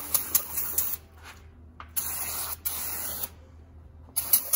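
Aerosol can of brake cleaner spraying onto an aluminum cylinder head in hissing blasts: one stops about a second in, another runs from about two seconds to just past three, and a third starts near the end.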